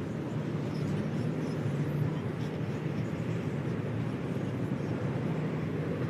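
Steady low drone of an engine with a faint hum.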